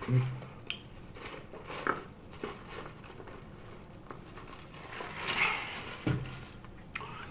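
Close-miked mouth sounds of drinking through a straw from a large paper fountain-drink cup: soft sips and swallows with small wet clicks, and a louder slurp about five seconds in.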